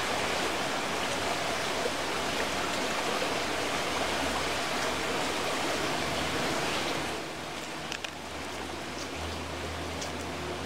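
Shallow stream rushing over stones, a steady rush of water. About seven seconds in it drops quieter, and a few faint clicks follow.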